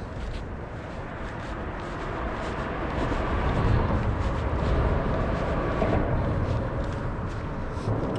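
Outdoor background rumble that swells about three seconds in and eases a little near the end, with faint light ticks through it.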